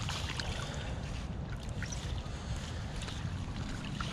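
Wind rumbling and buffeting on the microphone, over faint splashing of water at the bank edge where a small hooked pike is being drawn in.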